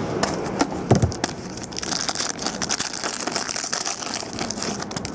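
Foil trading-card pack being torn open and crinkled by hand: a dense, high crackling. A few knocks come first as the cardboard box is opened.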